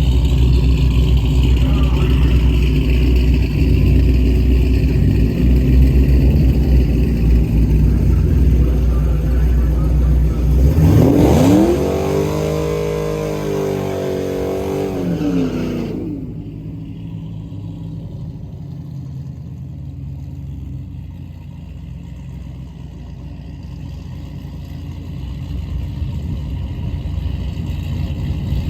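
Drag race car engines running loudly. About eleven seconds in, an engine revs hard, climbing in pitch and then falling away over about five seconds. The sound then cuts off abruptly to a quieter, steady engine rumble.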